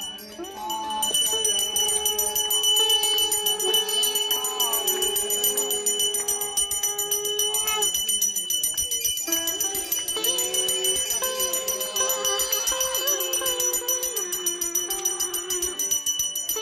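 A small brass puja hand bell rung rapidly and continuously during an aarti, over a melody that breaks off briefly about halfway through.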